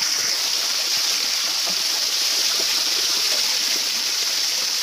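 Steady rush of water, an even hiss that holds without a break.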